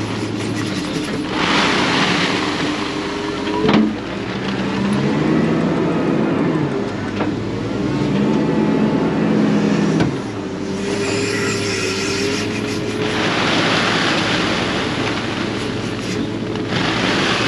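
Wheel loader's diesel engine running and working, its revs rising and falling as it moves, with two sharp knocks, one about four seconds in and one about ten seconds in.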